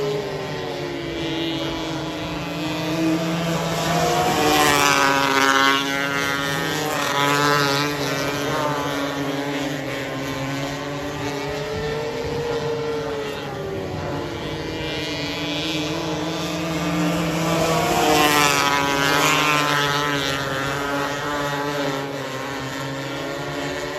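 270 micro sprint car engines running practice laps, their pitch rising and falling as they go through the turns. A car passes close by twice, about fourteen seconds apart, and the sound is loudest at each pass.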